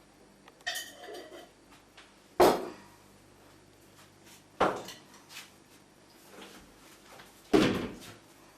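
Crockery and a spoon knocking and clinking: four sharp knocks spread over several seconds, the first ringing briefly, the loudest two near the middle and near the end.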